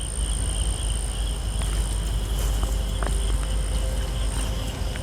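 Insects shrilling steadily in undergrowth: a continuous high-pitched trill and a lower, pulsing one, over a low rumble on the microphone.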